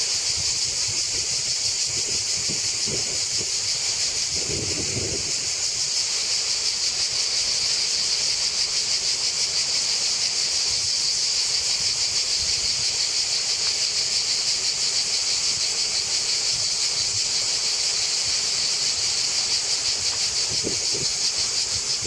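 Cicadas singing in chorus: a steady, high, shrill buzz that pulses very rapidly. A few soft low bumps sound under it in the first five seconds and again near the end.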